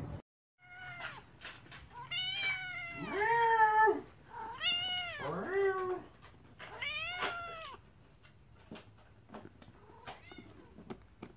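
Domestic cat meowing again and again: a string of drawn-out meows in the first eight seconds, the loudest and lowest one about three seconds in, then a few faint ones.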